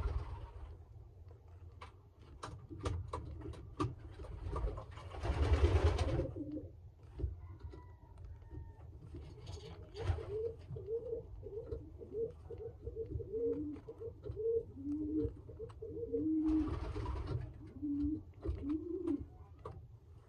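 Domestic pigeons cooing: a run of short, low, wavering coos through the second half. Scattered clicks and a few brief rustles of handling come before it.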